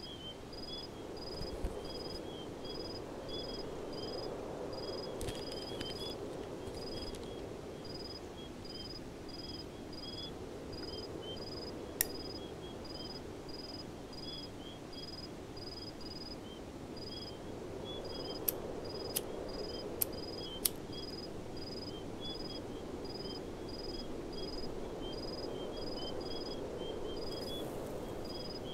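Night ambience of crickets: one chirping steadily at an even pace, others chirping irregularly, over a low distant hum. A single sharp click about halfway through and four more in quick succession a little later.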